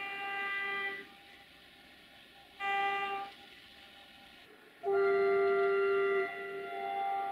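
Locomotive horn sounding three blasts: one ending about a second in, a short one near three seconds, and a long one from about five seconds that changes tone partway through.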